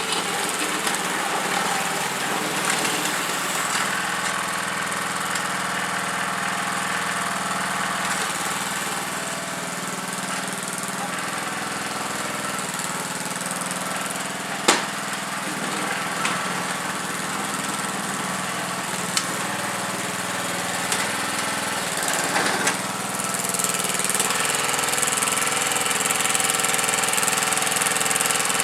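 Snapper lawnmower's small engine running steadily under load while it pushes snow with a front-mounted plow. One sharp knock about halfway through, and a fainter one a few seconds later.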